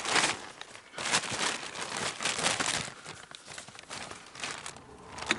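Thin plastic bag crinkling and rustling as it is pulled open and handled, in irregular bursts that are loudest in the first three seconds.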